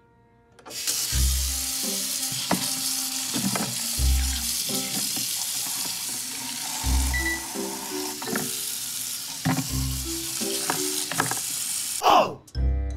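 Kitchen tap running onto a carp head held in a plastic colander in a stainless steel sink, a steady rush of water that starts just under a second in and stops near the end. Background music with a regular bass beat plays over it.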